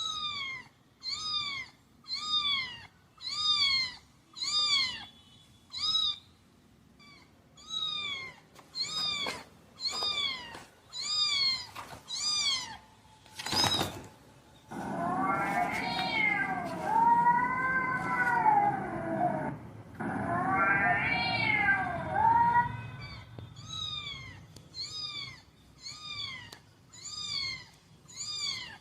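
A cat meowing over and over in short, high mews about one a second. In the middle it breaks into longer, louder drawn-out calls, then the short mews resume.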